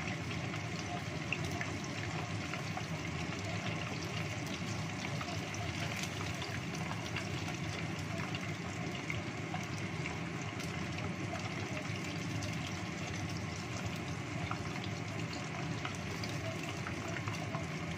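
Chicken wings deep-frying in hot oil in a saucepan: a steady sizzle dotted with small crackles.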